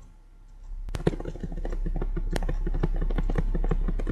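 Laptop keyboard keys tapped rapidly over and over, a fast run of clicks starting about a second in, as the brightness key is pressed repeatedly. A steady low hum runs underneath.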